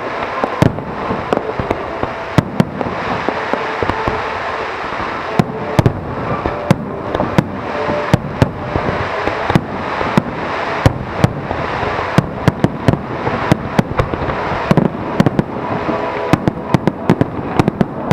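Aerial fireworks display in full barrage: dozens of sharp shell bursts, several a second, over continuous crackling.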